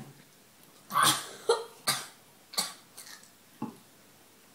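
A young boy coughing in a string of short bursts, about six in all, the first the loudest, after swallowing a foul-tasting smoothie.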